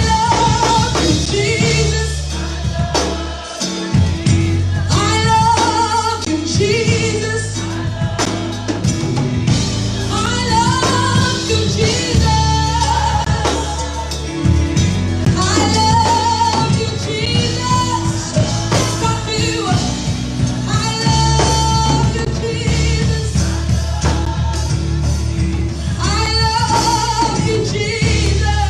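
Gospel worship song: singing over instrumental backing with a steady bass line.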